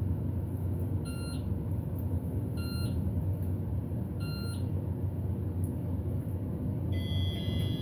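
Elevator car travelling down with a steady low hum. Three short electronic beeps come about a second and a half apart as it passes floors, then a longer chime of several tones near the end as the car arrives at its floor.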